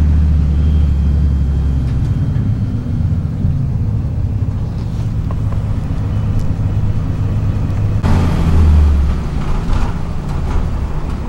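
Route bus diesel engine running, heard from inside the passenger cabin as a steady low rumble. About eight seconds in, the sound shifts and the rumble swells briefly, as with the bus pulling away or accelerating.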